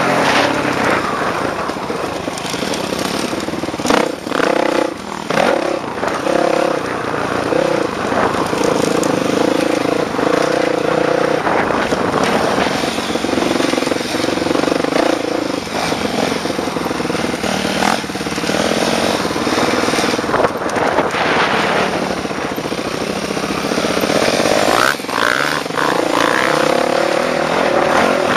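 Dirt bike engine ridden hard over a motocross track, its pitch rising and falling as the throttle is opened and chopped, with several quick drops between about four and seven seconds in.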